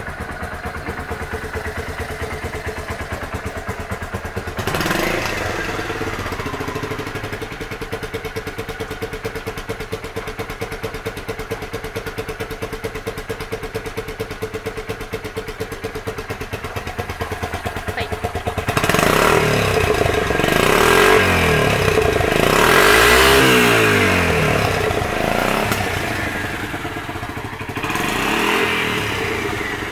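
Kawasaki Vulcan 400 Drifter's V-twin engine idling steadily, blipped once about five seconds in, then revved up and down several times in the last third, with one more short blip near the end. The seller calls the engine in good running order.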